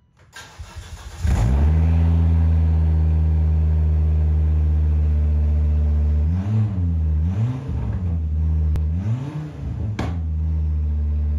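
Volvo V70R's turbocharged 2.5-litre inline-five cranking for about a second and catching, then idling loud and open with its cat-back exhaust removed. It is revved three times in quick succession before settling back to idle.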